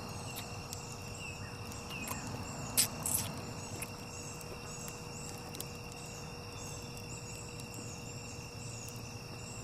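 Summer woodland ambience: a steady high insect drone with a repeating high chirp running through it, and two sharp clicks about three seconds in.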